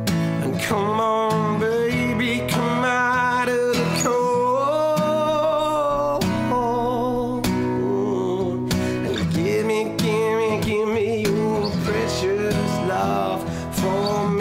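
Acoustic guitar strummed steadily while a man sings long, wordless held notes over it, sliding between pitches.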